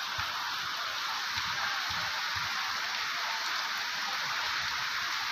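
Torrential rain pouring steadily, a dense even hiss of heavy rainfall.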